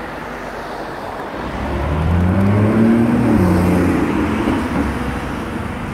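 Street traffic, with a city bus's engine passing close by: its engine note rises in pitch and then falls, loudest about halfway through.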